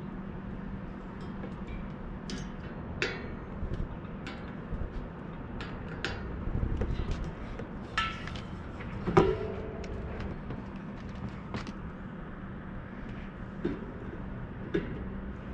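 Scattered metallic clicks and clinks as a bicycle rear wheel, its cassette and hand tools are handled. One louder clank about nine seconds in rings briefly. A steady low hum runs underneath.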